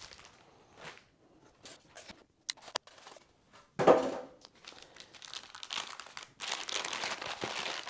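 Plastic packaging crinkling and rustling as fan parts are unwrapped and lifted from their box, with a few light clicks. About four seconds in there is a brief louder sound as the styrofoam-packed motor is set down. Steadier crinkling of a plastic bag fills the last second and a half.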